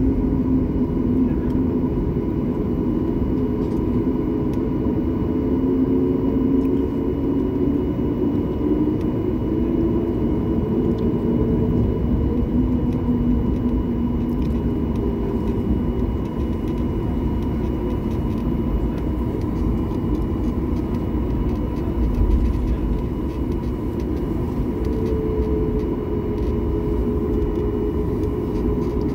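Jet airliner cabin noise while the plane moves on the ground: the engines run with a steady low rumble and several humming tones that drift in pitch, a higher engine tone coming in near the end.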